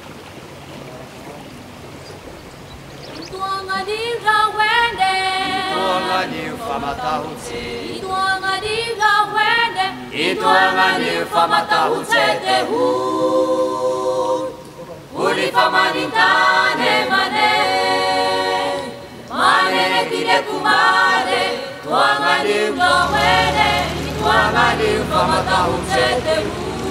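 A choir singing unaccompanied, several voices together, starting quietly and swelling a few seconds in. A low steady hum joins near the end.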